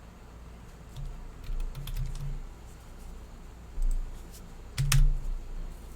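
Scattered light clicks and taps, with a louder knock about five seconds in, over a steady low hum.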